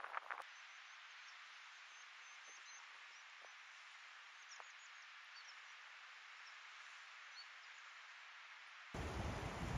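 Faint, steady rush of a distant mountain river, with a few faint high bird chirps. About nine seconds in, a sudden louder, gusty rush with a deep rumble cuts in: wind buffeting the microphone.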